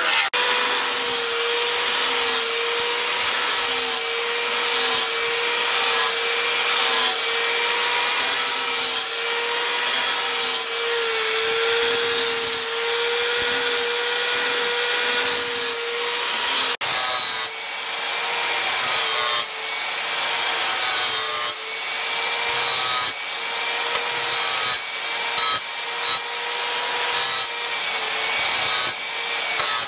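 Handheld angle grinder with a sanding disc running with a steady whine while it grinds a leaf-spring steel cleaver blade. The rasp of disc on steel swells and eases again every second or two as the disc is pressed along the blade in repeated passes.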